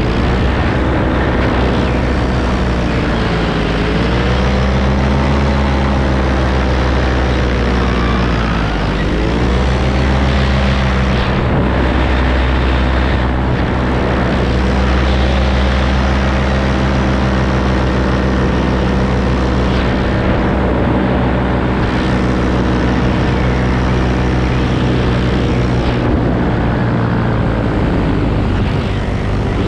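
Paramotor engine and propeller running in flight, heard close up from the pilot's harness. The engine note dips and comes back up twice in the first ten seconds, then holds steady.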